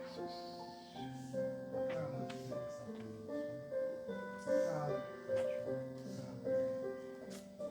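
Keyboard playing slow, sustained chords with a simple melody on top: a quiet instrumental continuation of a worship song.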